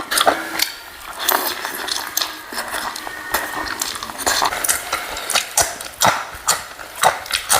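A person eating chicken curry close to the microphone: chewing and lip-smacking, with irregular sharp wet clicks several times a second.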